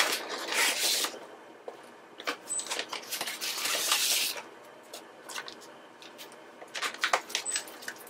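Paper takeout bag rustling and crinkling in two spells, with scattered clicks and knocks as black hinged takeout containers are lifted out and set down on a countertop.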